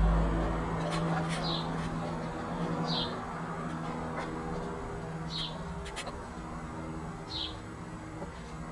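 A garden bird gives a short, high, falling chirp about every one and a half to two seconds, over a steady low hum.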